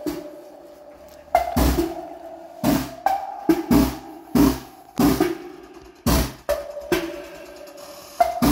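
Drum-heavy music with a pounding kick and snare, played loud through a repaired Mac Audio woofer on its amplifier turned up to more power.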